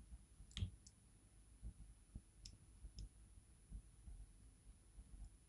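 Faint, sparse clicks and light taps of a small screwdriver and metal lock parts as a padlock's core is worked against its tailpiece, which keeps catching and won't let the core slide out. The clearest click comes about half a second in, with a few more at about two and a half and three seconds.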